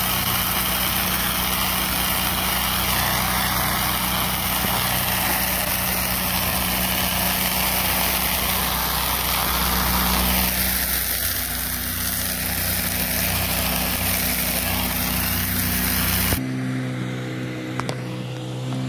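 Pressure washer engine running steadily under the hiss of water spraying from the wand. About sixteen seconds in it cuts off abruptly and background music takes over.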